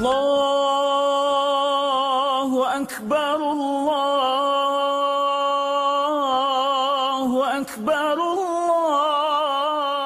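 A solo voice singing long held notes with a wavering vibrato, without accompaniment, broken by two short gaps about three and eight seconds in.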